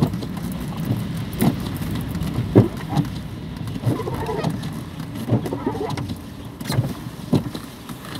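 Car cabin noise while driving on a snow-covered road: a steady low rumble of engine and tyres, broken by irregular short knocks and clunks.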